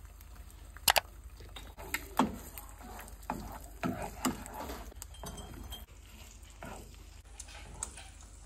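Eggs frying in oil in a nonstick pan, sizzling, while a plastic spatula scrapes and knocks against the pan several times.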